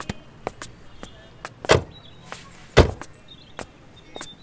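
Car door of an SUV being opened and then shut with a solid thud nearly three seconds in, the loudest sound, among sharp irregular footsteps and clicks on hard ground.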